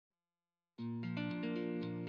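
Intro music starting about three-quarters of a second in: a melodic tune of held notes that change every few tenths of a second.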